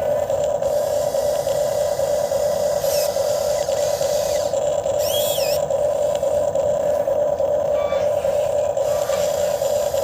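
RC excavator's hydraulic pump motor running with a steady, unbroken hum, with a few brief high warbling chirps about three and five seconds in.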